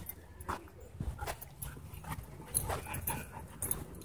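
Dogs play-fighting, giving several short vocal calls about every half second to a second.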